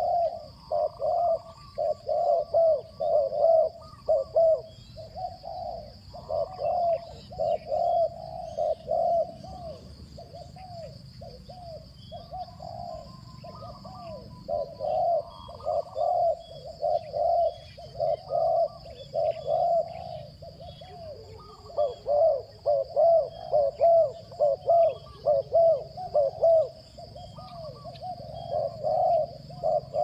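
Spotted doves cooing: quick runs of short, repeated coos in bouts, quieter for several seconds in the middle and then a dense run through the last third.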